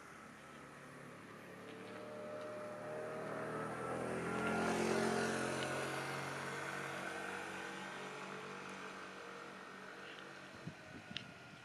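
A motor vehicle passing nearby: its engine hum and tyre noise swell to a peak about five seconds in, then fade away. A few light clicks come near the end.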